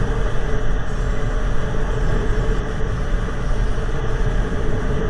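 Motorcycle engine running steadily while riding along, mixed with wind and road noise.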